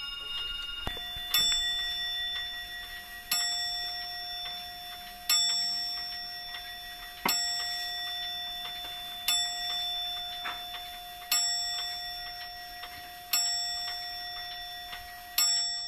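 A clock striking the hour: eight slow, evenly spaced strokes about two seconds apart. Each stroke rings out and fades before the next.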